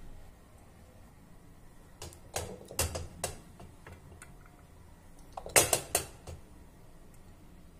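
Steel ladle clinking against a stainless steel idli plate and the batter pot as rice-and-sago batter is ladled into the cups: a few sharp metallic clinks about two seconds in, then a louder group about five and a half seconds in.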